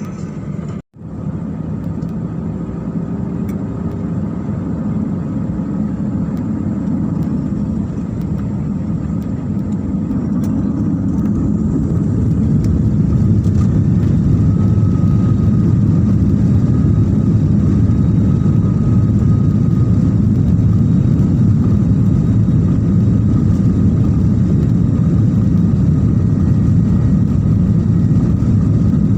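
Jet airliner's engines heard from inside the cabin, their noise building over the first dozen seconds with a faint rising whine, then holding steady and loud: engines spooling up to takeoff power.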